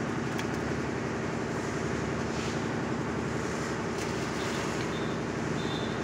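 Concrete mixer's engine running steadily at a constant speed.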